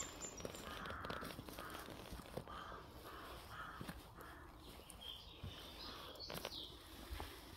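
Crows cawing, a series of short caws one after another, with a single sharp snap about six seconds in.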